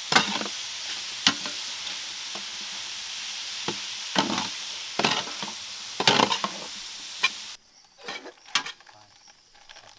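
Chicken gizzards sizzling in a large metal pan while a steel ladle stirs them, scraping and knocking against the pan every second or so. The sizzle cuts off suddenly about three-quarters of the way through, and a couple more scrapes follow.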